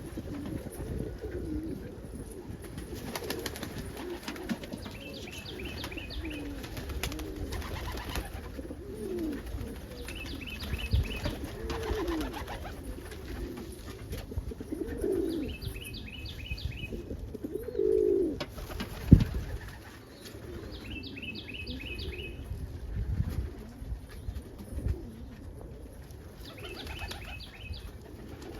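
Indian fantail pigeon cock cooing: several low coos that rise and fall, spaced a few seconds apart. Short rapid series of high chirps repeat about every five seconds alongside them, and there is a sharp click about 19 s in.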